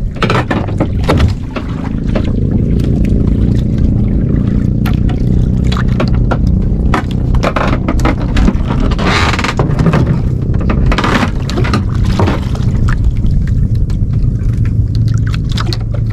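Outrigger fishing boat's engine running at a steady drone, with scattered clicks and knocks from the catch and fishing line being handled on deck.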